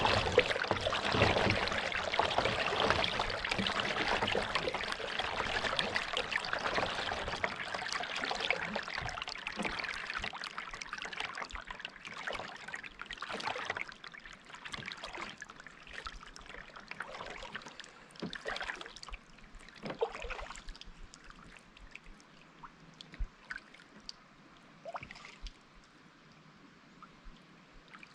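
Water splashing and trickling around a kayak and its paddle. It is a dense wash at first, then thins over about ten seconds into scattered drips and small splashes, and dies away almost to quiet near the end.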